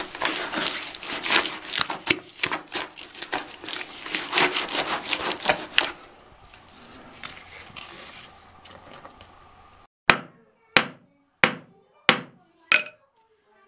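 Gritty scraping and rubbing against rough stone and grit for several seconds. Then, about ten seconds in, a small hammer strikes stone five times, each blow sharp and separate, about three every two seconds.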